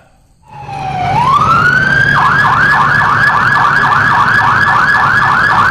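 Fire engine siren winding up in pitch over about a second and a half, then switching to a fast yelp at about three to four cycles a second.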